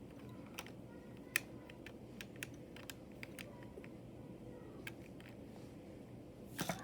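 Scattered light clicks and taps of plastic LEGO pieces being handled and fitted on a built model, a few clicks close together near the end, over a steady low background hum.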